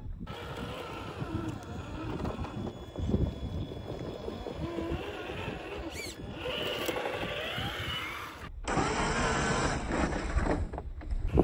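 Stock Traxxas TRX-4 High Trail RC crawler's electric motor and geared drivetrain whining, rising and falling in pitch with the throttle, with tyres crunching over rock and sand. The sound breaks off briefly about eight and a half seconds in.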